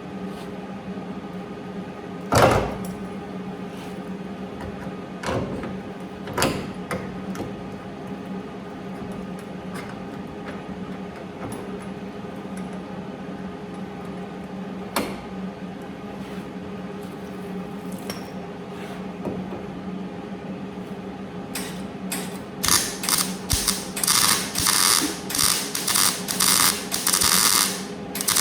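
Steady electrical hum with a few sharp clicks. Near the end comes a run of short welding bursts, each about half a second long, as a sheet-metal patch is stitch-welded in with a MIG welder.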